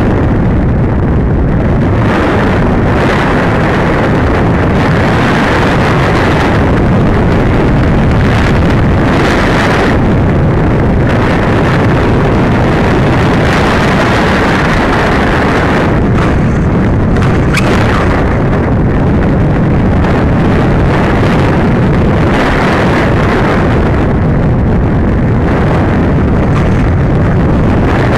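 Loud, steady wind noise from air rushing over the onboard camera's microphone on a Masterline Preacherman RC glider in flight.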